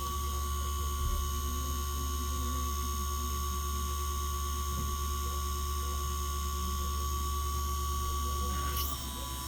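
Small power tool's electric motor running at a steady speed with a steady whine, dropping slightly in pitch and level near the end.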